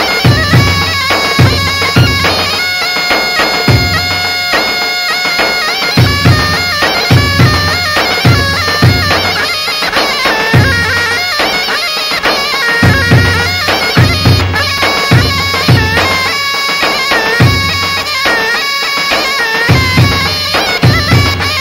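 Large double-headed tabl drums beaten with sticks in a dance rhythm, under a loud, shrill, reedy wind-instrument melody with held notes and fast ornaments.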